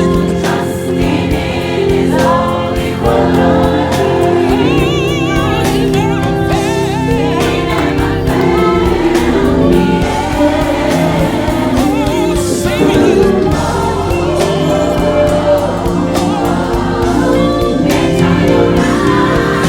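Gospel choir singing with accompaniment, voices holding long notes with vibrato.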